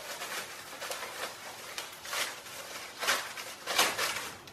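Clear plastic bag crinkling and rustling as it is pulled off a steel yoke J hook by hand, with louder rustles about two, three and almost four seconds in.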